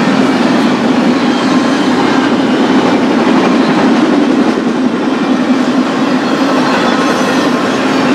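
Intermodal freight train running past on the rails: a loud, steady noise of wheels and cars that holds even throughout.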